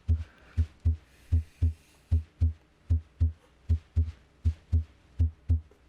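Normal first and second heart sounds (S1 and S2) in an auscultation recording: paired low 'lub-dub' thumps repeating at a steady rate of about 75–80 beats a minute.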